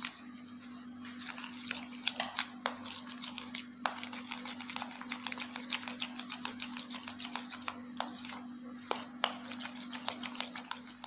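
Metal spoon stirring and scraping a thick mix of mayonnaise and butter in a plastic bowl, with many quick, irregular clicks and taps against the bowl. A steady low hum runs underneath.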